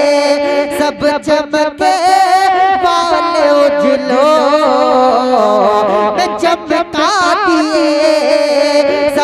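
A man singing a naat, an Urdu devotional song, into a microphone: long wavering notes that slide and bend up and down without clear words.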